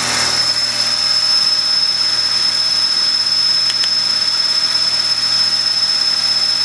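Tormach Duality lathe running steadily as it turns an aluminum part, a high steady whine over an even hiss and low hum.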